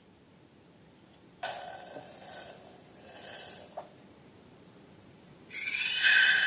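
Air rushing out of a balloon's neck in two bursts: a weaker hiss, then from about five and a half seconds a louder, longer rush with a steady squeal in it.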